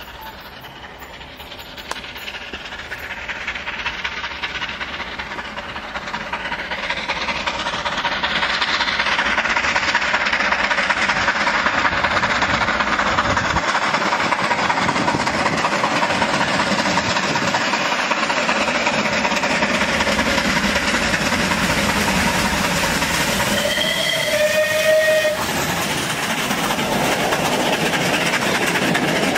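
Bulleid Battle of Britain class steam locomotive 34067 Tangmere approaching with its train: the sound grows louder over the first eight seconds, then holds as a steady rush of locomotive and train noise as it nears and passes. Its whistle sounds once, about a second long, near the end.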